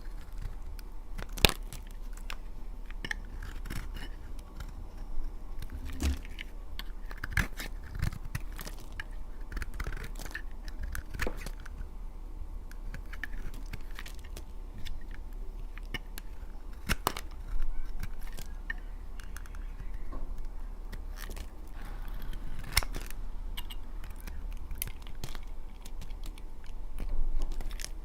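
Blade cutting through dry laundry soap: irregular crisp cracks, crunches and scrapes, with a few sharper snaps standing out, over a faint low hum.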